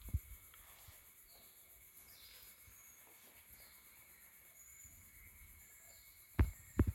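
Faint jungle ambience with a few brief high bird or insect chirps over a thin steady hum. Near the end come three or four sharp thumps close to the microphone.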